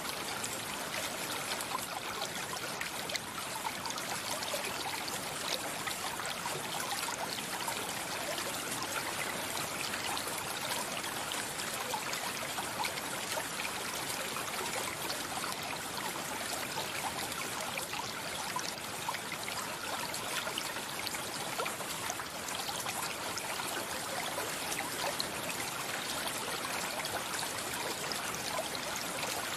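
A mountain stream flowing steadily, water running and trickling over stones.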